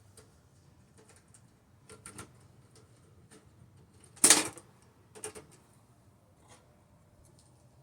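Scattered light clicks and taps of computer parts and tools being handled during disassembly, with one louder clatter about four seconds in.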